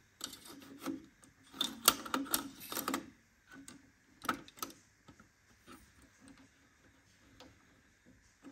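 Faint plastic clicks and rattles of a cassette tape being fitted into the holder of a Kenwood KX-59CW cassette deck, followed by a couple of clicks as the cassette door is pushed shut about four seconds in.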